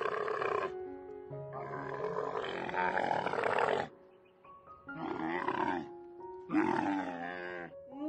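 Bactrian camels calling in a series of rough, drawn-out calls: one fading out under a second in, a long one after it, then two shorter ones near the end. Background music with held notes plays under them.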